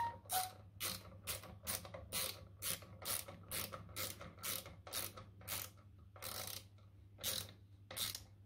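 A hand ratchet clicking in a steady rhythm of about two clicks a second as it tightens stainless steel bolts into the plastic valve body of a Kinetico water softener. The clicks slow to a few longer strokes near the end.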